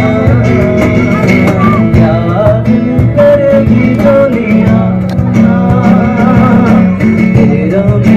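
Live amplified acoustic music: a man singing into a microphone over an acoustic guitar, with a cajón player keeping the beat, carried through a PA speaker.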